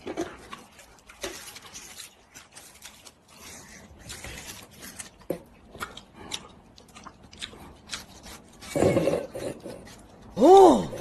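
Crisp, wet crunching of watermelon flesh being bitten and chewed: a string of short crackles, with a louder bite about nine seconds in. Near the end a short call rises and falls in pitch.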